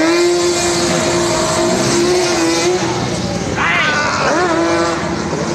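Sport quad's engine held at high, steady revs while it spins donuts, briefly dipping and climbing back right at the start. About three seconds in the steady note drops away and shorter engine revs rise and fall.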